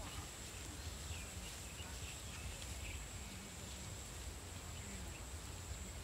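Open-field ambience: a low wind rumble on the microphone, a steady thin high tone, and faint scattered bird chirps.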